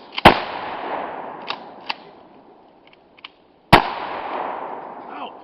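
Two shotgun blasts about three and a half seconds apart, each a sharp crack followed by a long echo that fades over a second or two, with a few faint clicks between them.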